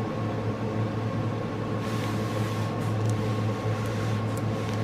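Steady low hum of room background noise, with a faint thin tone above it and a few soft rustles.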